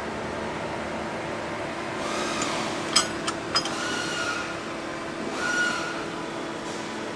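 Steady hum of a shop fan. About three seconds in come a few sharp clicks and short scrapes as a hand works a bulk body filler dispenser and its mixing board.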